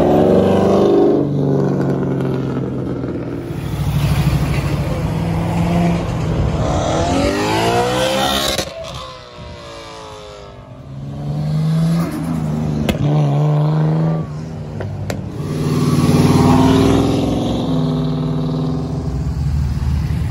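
Several cars accelerating past one after another, engines revving up through the gears, including a yellow C6 Corvette near the start and a red Dodge Challenger close by near the end. A sharp rising rev comes about seven to eight seconds in, followed by a brief lull before the next car.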